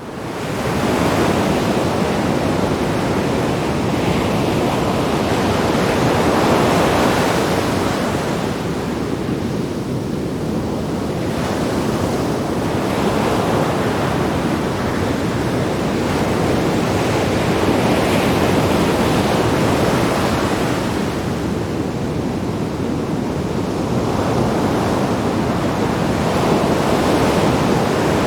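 Sea waves breaking and washing against rocks, a continuous rushing surf that swells and eases every few seconds, with some wind on the microphone.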